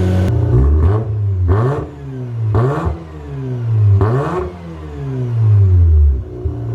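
Mazda RX-7's rotary engine with its revs rising and falling over and over, about every second and a half: idle surge, the engine hunting instead of holding a steady idle.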